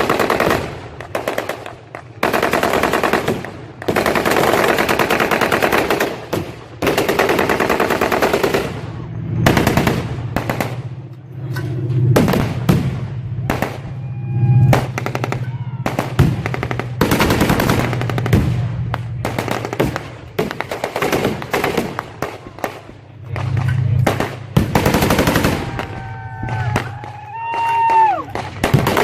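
Simulated anti-aircraft machine-gun fire: rapid automatic bursts, long and one after another. A low steady drone runs under the later bursts, and a few falling whistles sound near the end.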